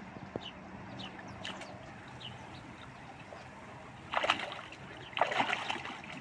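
Shallow river water running steadily, then hands splashing in it twice: briefly about four seconds in, and for longer about a second later.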